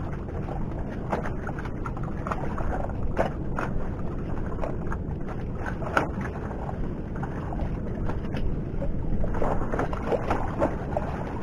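Steady low wind rumble on the microphone, with scattered small clicks and taps as a squid is worked free of a squid jig's hooks in a landing net.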